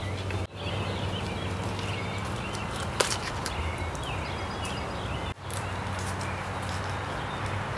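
Outdoor ambience: small birds chirping over a steady low hum, with one sharp click about three seconds in. The sound drops out briefly twice.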